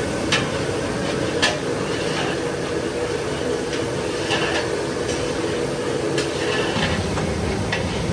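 A metal utensil knocking and clinking against a large cooking pot at irregular intervals, over a steady rushing noise.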